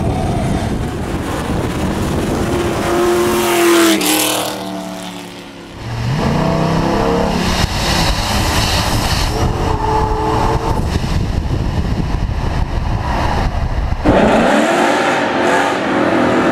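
Performance car engines accelerating hard, the engine note climbing as the revs rise, in several runs. The sound dips briefly about five seconds in, and a loud new run starts near the end.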